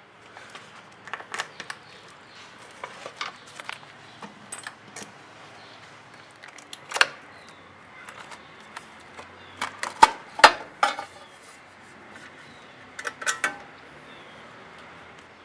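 Irregular metallic clicks and clinks of hand tools and fittings being worked on a Royal Enfield Classic 500's battery mounting, with a few louder knocks about ten seconds in.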